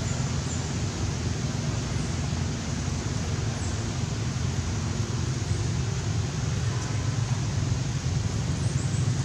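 Steady wind noise on the microphone outdoors, a low rumble over a constant hiss.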